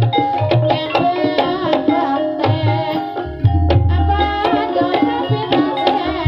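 Javanese ebeg dance accompaniment music: deep kendang hand-drum strokes under a layer of ringing pitched percussion and a wavering melodic line.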